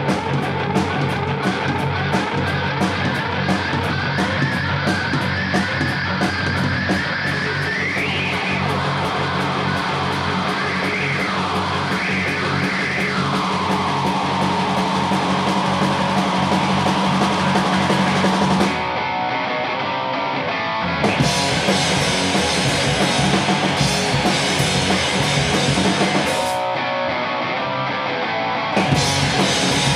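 Rock band playing heavy rock: electric guitars, bass guitar and drum kit, with a fast steady beat. The cymbal sound drops out briefly twice in the second half.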